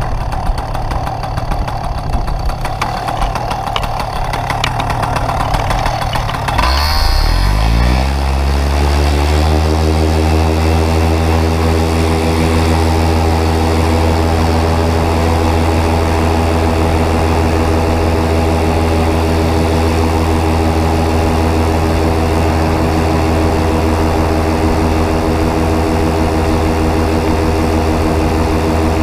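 Top 80 two-stroke paramotor engine and propeller running at low throttle with wind noise, then, about seven seconds in, rising in pitch as it is throttled up to full power for the takeoff run. It then holds a steady, even drone at high power to the end.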